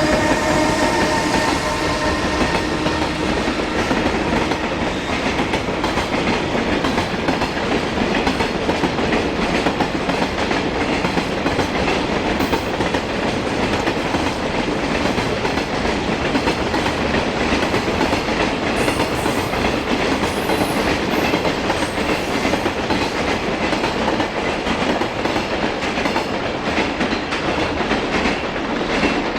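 A high-speed container freight train rolling past close by, its wagons making a steady, loud clatter of wheels on rail. A humming tone fades out in the first couple of seconds.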